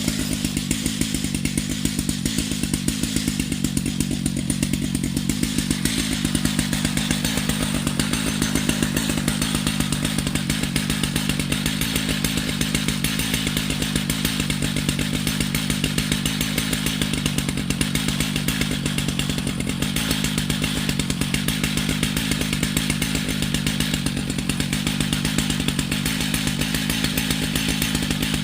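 Stihl MS 881 two-stroke chainsaw running steadily at high speed under load, milling lengthwise through a Douglas fir log.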